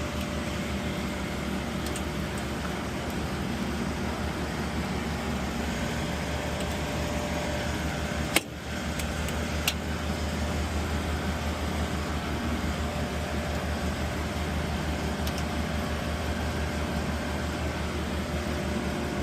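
Steady mechanical drone of air-handling equipment running, with a strong low hum under a broad rushing noise. A sharp click a little past eight seconds and a faint tick about a second later.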